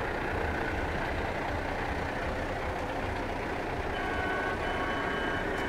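Big diesel engine of a heavy-haulage ballast truck idling steadily with a deep, low, even sound.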